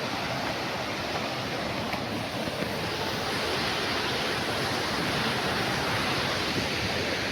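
Small waterfall: water falling and rushing in a steady, even roar of noise.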